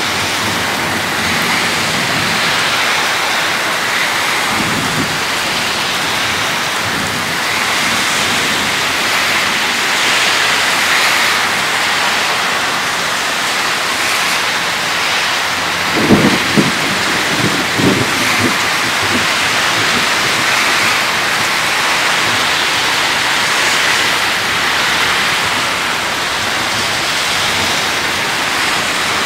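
Steady heavy rain during a thunderstorm. A faint roll of thunder comes about five seconds in, and a loud thunderclap with rumbling follows about sixteen seconds in.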